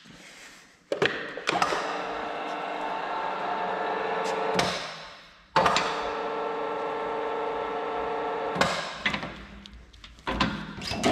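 LIMA PE-1 pipe expander running twice, each run about three seconds of steady mechanical whine that starts with a clunk, as it expands the end of a sheet-metal downpipe. A few metal knocks follow near the end as the pipe is handled.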